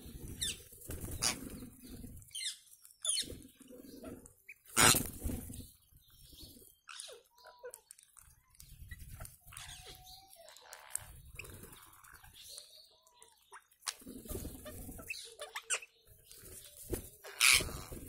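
Flock of rose-ringed parakeets on the ground: scattered short chirps and squawks with rustling wing flaps, and two loud, sharp bursts about five seconds in and near the end.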